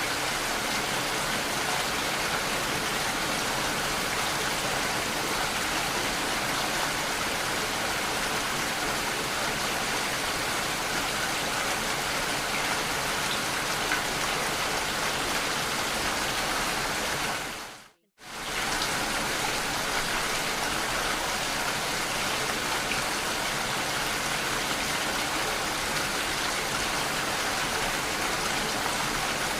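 Steady rain, an even rushing patter, which fades out to near silence for a moment about eighteen seconds in and fades straight back.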